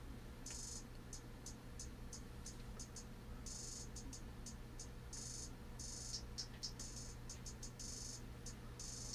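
A programmed trap hi-hat pattern playing back faintly: short high ticks with quick stuttering rolls. The hi-hat sample is processed with EQ, overdrive, reverb and left-right stereo panning. A low steady hum runs underneath.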